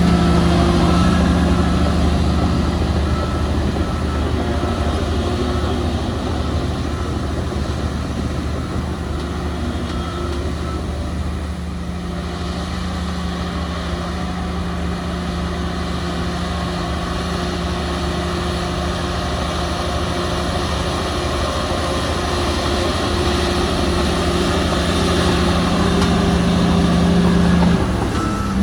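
Heavy diesel earthmoving machinery running steadily with a deep engine hum. The hum eases slightly around the middle and builds again toward the end.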